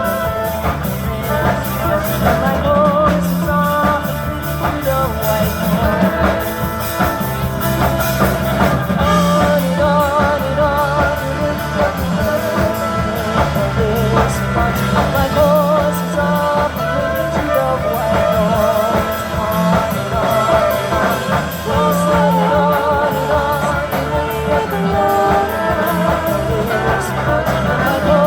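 Live band playing a song, with a singer's voice wavering in vibrato over bass notes that change every second or two and a drum beat.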